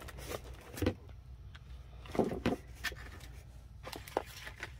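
Handling noise of a paperboard tea-light carton and a cardboard box being moved and set back in place: a few soft knocks and rustles, the loudest about two and a half seconds in, over a low steady hum.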